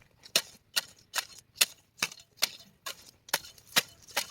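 Repeated sharp strikes, a tool chopping, about ten evenly paced blows a little over two a second.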